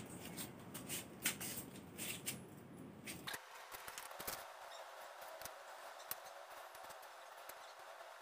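Faint clicks and light rustling of small tealight candles in metal cups being handled and set down. A low background hum cuts off suddenly a little over three seconds in.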